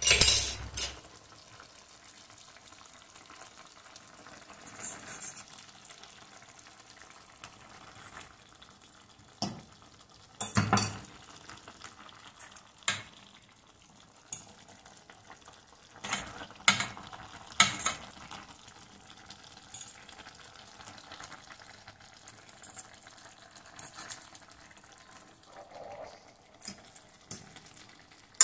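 Moqueca simmering and faintly sizzling in a stainless-steel pan, as pieces of fried fish are laid in with a metal spoon and fork. The utensils clink and scrape against the pan and plate now and then, with a cluster of knocks around the middle.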